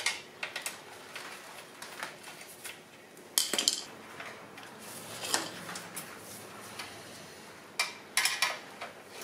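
Small metal clicks and clinks of hex keys working on a motorcycle exhaust clamp bolt as the clamp is loosened, with a few sharper clanks about three and a half and eight seconds in.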